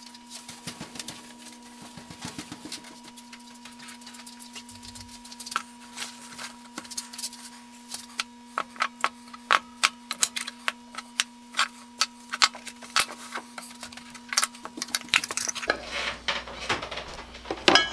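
Metal tools and small parts being handled on a wooden workbench: a run of sharp clicks and clinks that grows busier from about a third of the way in, ending with a screwdriver prying at the lid of a metal tin. A steady low hum underlies it and stops shortly before the end.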